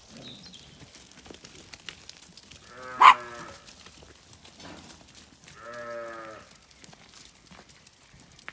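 Zwartbles ewes bleating: two low, drawn-out baas, the first about three seconds in and louder, the second about six seconds in and lasting nearly a second.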